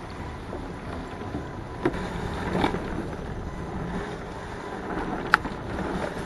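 Fat bike riding over a trail: tyre rumble and wind noise on the handlebar camera, with a few sharp clacks of the bike jolting over bumps, the sharpest about five seconds in.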